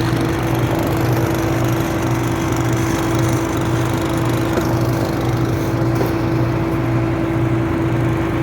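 A small engine-driven blower running steadily, with a constant hum and a lower throb pulsing about twice a second, as dust is blown out of a combine harvester to clean it.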